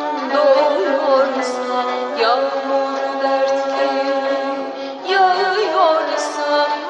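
Woman singing a Turkish classical şarkı in makam Sabâ, with an ornamented, wavering vocal line over instrumental accompaniment in the aksak rhythmic cycle.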